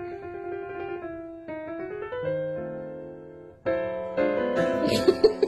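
Gentle solo piano music plays as a background track, with a slow melody of single notes. Near the end a few sharp, loud sounds sit over the music.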